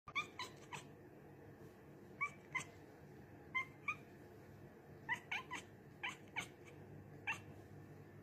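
A cat chirping at a window: about a dozen short, sharp, high chirps, mostly in pairs or threes, the excited chirp a cat makes while watching something outside.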